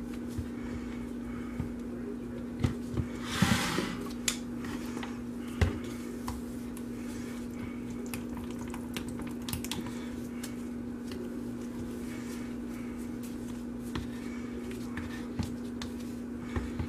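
Spatula stirring cold process soap batter in plastic pitchers: soft scattered taps and scrapes against the plastic, with a louder scrape about three and a half seconds in, over a steady low hum.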